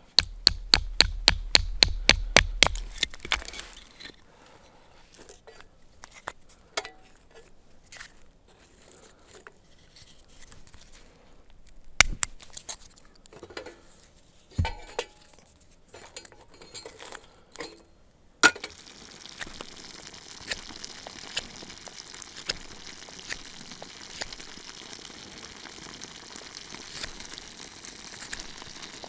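Camp cooking gear: a quick run of clicks at first, then scattered clinks and knocks. About two-thirds of the way through a sharp click is followed by a steady hiss with fine crackle, like food sizzling.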